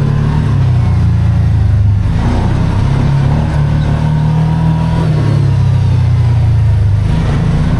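Kawasaki Teryx4 UTV's V-twin engine running steadily while driving, its pitch holding with small dips and rises.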